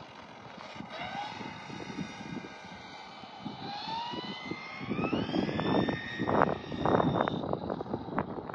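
The TP 4070 brushless motor of an Arrma Limitless V2 RC speed car on 6S LiPo whines as the car accelerates away under throttle. The pitch rises steadily for a few seconds, then holds high. From about halfway through, gusty wind noise buffets the microphone and is the loudest sound.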